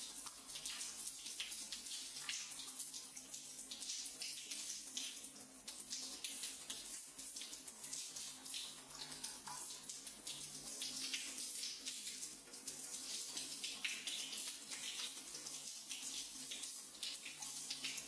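Shower water falling on wet hands: a steady hiss with many small, irregular splashes.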